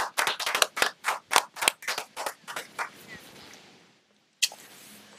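A few people clapping, the claps thinning out and dying away about three seconds in. The sound then cuts out briefly and comes back as a faint hiss.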